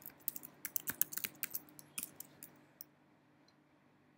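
Computer keyboard typing: a quick run of key clicks as a terminal command is typed, which stops a little over halfway through.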